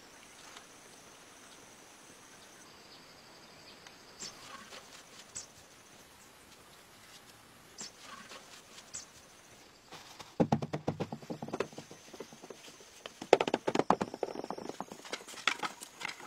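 Stones and wood being handled and set down: a few scattered single knocks, then two bursts of rapid clattering knocks, about ten and about thirteen seconds in.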